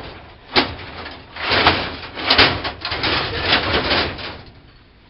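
Scraping and rubbing with a few sharp knocks as a vending machine is being torn apart, dying down near the end.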